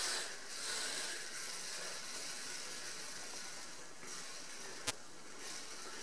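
Pipe-freeze aerosol hissing steadily as it is sprayed through its tube into a foam insulation cup around a vertical 15 mm copper pipe. The refrigerant vaporises fairly quickly, a sign the pipe still has cooling to do before an ice plug forms. A single sharp click comes a little before the end.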